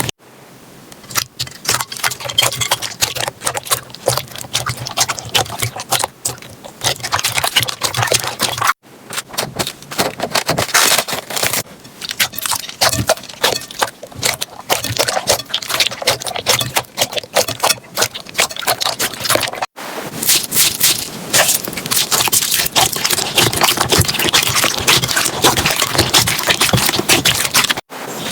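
Slime being squished and pressed by hand, giving a dense run of crackling clicks and pops. The sound breaks off briefly three times.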